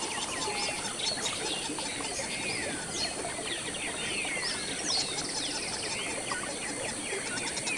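A chorus of wild birds: many overlapping chirps and whistled calls that sweep up and down in pitch, over a steady high hiss.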